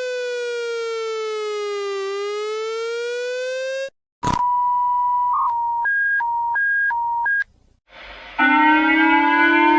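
Emergency alert alarm tones played back to back: a buzzy siren tone slides down and back up, then cuts off at a click. A steady beep follows and starts switching back and forth between a lower and a higher pitch. After a short gap, a buzzy, slowly rising tone begins near the end.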